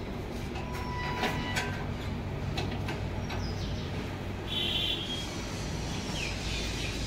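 Metal gate clanking and rattling as it is worked, with a brief squeak about a second in and several sharp knocks. Birds chirp in the background.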